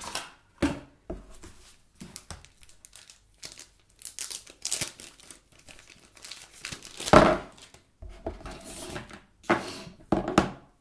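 A thin clear plastic bag crinkling and tearing in irregular bursts as a phone battery is worked out of its wrapping by hand. The loudest rustle comes about seven seconds in.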